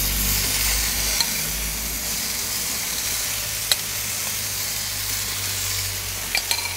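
Marinade sizzling as it is spooned over a side of salmon on a cedar plank in a hot charcoal oven, a steady high sizzle, with a few sharp clicks about a second in, near four seconds and near the end.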